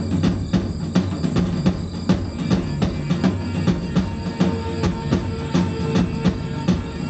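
Live rock band playing: drum kit and a stick-beaten hand drum keep a steady beat under electric guitar. A held note comes in about four seconds in.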